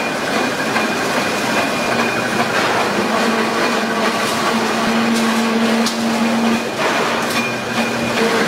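Sheet-metal circle-cutting machine running as it cuts a metal sheet into a round blank: a steady, dense mechanical noise with a low hum and a few sharp clicks.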